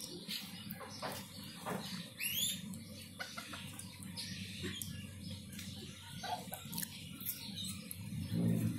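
Bantam chickens foraging, with soft clucking and short clicks of pecking and scratching in dry leaves, and one high squawk about two seconds in. A louder low-pitched sound comes near the end.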